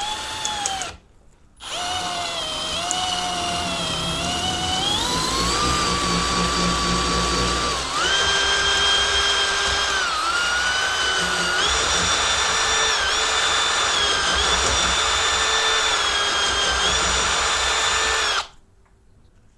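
Cordless drill spinning a pine dowel through a dowel maker's cutter, shaving it down. A short burst of the drill's motor whine, a pause of about a second, then a long run whose pitch climbs and shifts up and down several times as the trigger and cutting load change. It cuts off sharply shortly before the end.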